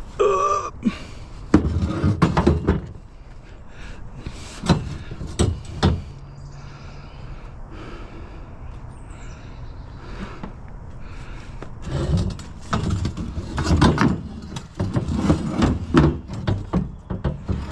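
Metal trampoline frame pieces clanking, knocking and rattling as they are handled and stacked on a pile. The knocks come in irregular clusters, with a quieter stretch in the middle and a busy run of clatter near the end.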